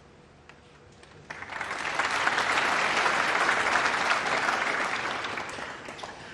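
Snooker audience applauding, starting about a second in and dying away near the end, for a shot that left the cue ball tight against the pack of reds. A couple of faint clicks come just before the applause.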